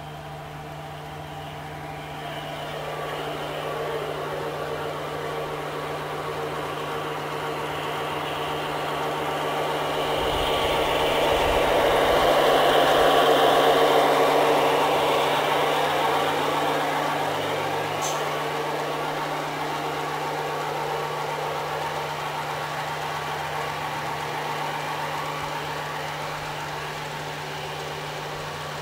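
A G-scale garden model train with a long string of tank cars rolls past on outdoor track, its wheels and motors running. The sound grows louder as the train nears, is loudest about halfway through, then slowly fades as it moves away.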